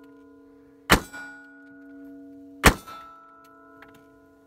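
Two pistol shots fired from inside a car, about two seconds apart, each followed by the lingering ring of a struck steel target plate.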